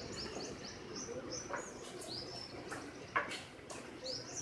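Birds chirping: a run of short, high chirps with some rising calls. A sharp knock comes a little after three seconds, with a few fainter knocks around it.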